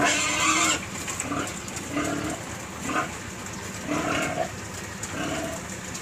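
A pen of young pigs: one gives a loud, harsh squeal in the first second, then short grunts come about once a second.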